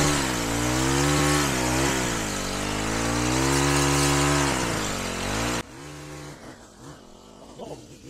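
Small gas engine of a Troy-Bilt trimmer power head driving a hedge trimmer attachment, revving up and down as it cuts cattail and reed stalks. It stops abruptly about five and a half seconds in.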